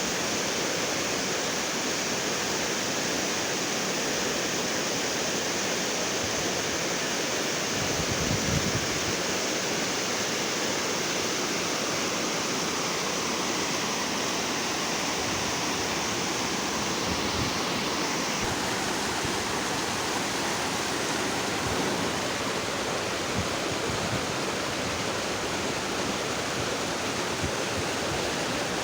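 Waterfall: a steady, even rush of falling water, with a brief low thump about eight seconds in.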